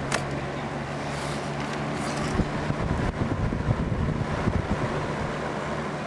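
Duracraft electric fan running: a steady motor hum under a rush of air. Irregular low rumbling comes in about midway and fades out again, with a click right at the start.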